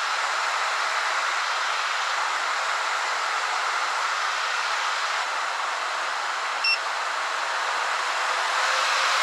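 AIRSEE GD3 nail dust collector's fan running: a steady loud whoosh of air drawn down through its filter. A short electronic beep comes about two-thirds of the way through, and the whoosh grows a little louder near the end.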